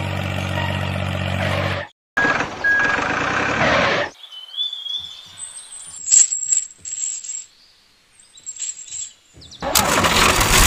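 Tractor engine sound running steadily, cutting off about two seconds in, followed by a brief burst of noise. Then small metal chain links clink and a hook clicks as a tow chain is hooked onto a model tractor's drawbar by hand. Engine noise starts again near the end.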